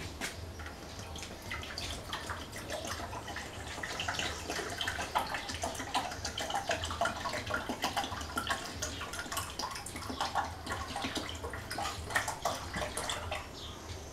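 Water poured from a plastic PET bottle into a PVC drain box, filling the lower reservoir of a homemade quail waterer: an uneven splashing trickle that starts about two seconds in and fades near the end.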